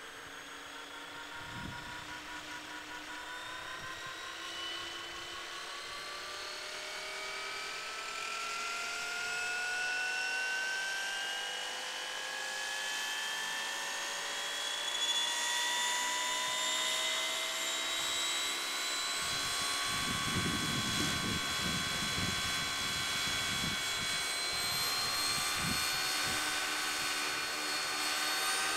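Large scale RC Westland Lynx helicopter spooling up on the ground: a whine of several tones rising steadily in pitch and growing louder as the main and tail rotors gather speed before take-off. A low buffeting rumble joins about two-thirds of the way through.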